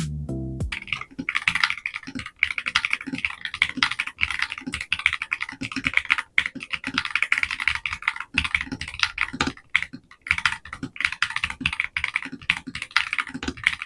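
Fast typing on a GA61 aluminium-cased mechanical keyboard with magnetic switches: a dense run of keystroke clacks, with brief pauses about two, six and ten seconds in.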